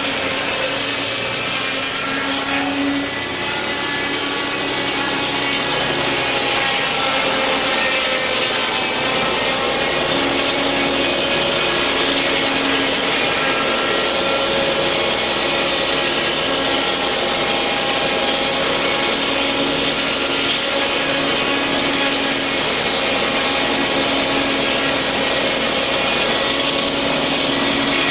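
Large circular sawmill blade, driven by a tractor's PTO, cutting lengthwise through a log: a loud, continuous sawing noise with several steady tones running through it.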